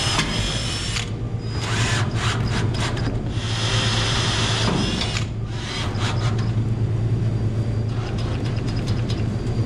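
Cordless drill running in several short bursts with a high whine, driving self-tapping screws through a sheet-steel toe-board panel into the cross members.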